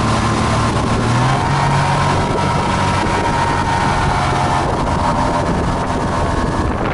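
Evinrude 130 two-stroke outboard motor running steadily under way at speed, a constant engine hum over the rush of water and wind.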